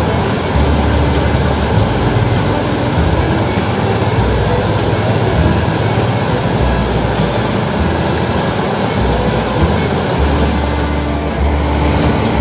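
Wind buffeting the microphone in irregular gusts of low rumble over a steady rushing noise.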